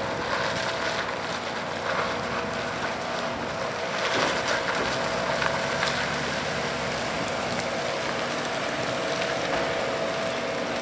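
A vehicle engine running, a steady hum under an even hiss of wind noise.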